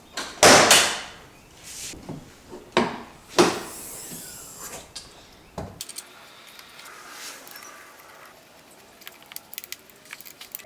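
Hands working in a car's engine bay: a few sharp knocks and clunks of parts being handled, the loudest about half a second in, then a run of small plastic clicks near the end.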